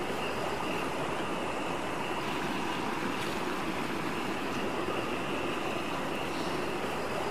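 Steady rushing of water among rocks, with a faint, steady high-pitched tone running over it.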